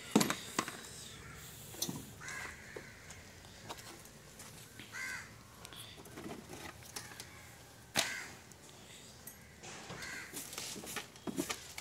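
Crows cawing several times, with sharp clicks and knocks of metal tools and parts being handled; the loudest knocks come right at the start and about eight seconds in.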